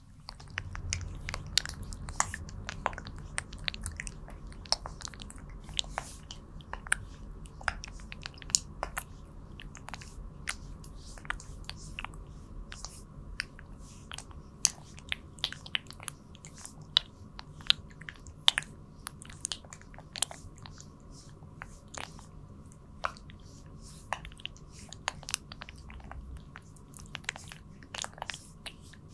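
Oiled hands massaging a mannequin's face, close to the microphone. Many irregular, sticky wet clicks come from palms and fingers sliding and lifting on the slick surface, over a low rubbing sound.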